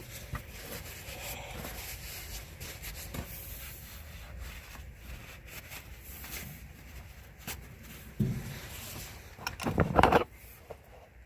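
Rubbing and handling noise with scattered small clicks, and a louder knock-like burst about ten seconds in, from hands working a rubber fuel hose onto its fitting on the tractor's injector drain line.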